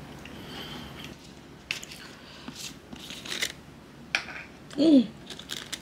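Cutlery clicking and scraping on a plate as a crumbly scone is cut and eaten, in scattered short clicks. Near the end, a short falling 'mm'-like sound from a person's voice.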